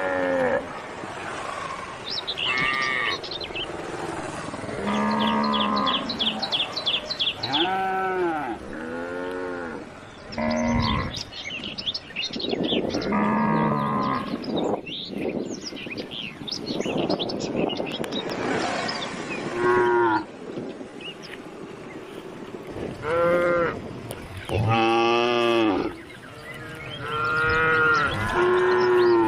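Cows mooing again and again, more than a dozen calls from several animals at different pitches, some low and level, many higher with a rising-then-falling pitch.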